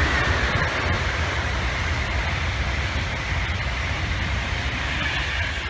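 A loud, steady rumbling noise with a hiss over it, easing slightly near the end.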